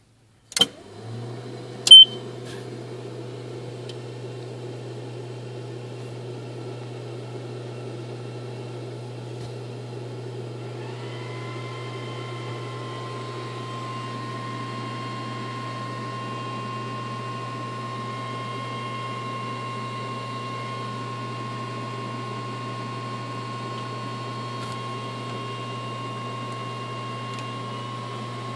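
Aircraft avionics powering up with the aircraft's electrical system switched on: a click, then a louder click with a short beep, followed by a steady electrical hum. About ten seconds in, a whine glides up in pitch and then holds as a steady tone over the hum.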